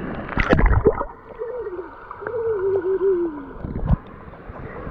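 Pool water splashing and sloshing right at a waterproof action camera held at the surface, with a burst of loud splashes about half a second in, then muffled gurgling as the water washes over the housing. A muffled wavering tone comes through twice in the middle.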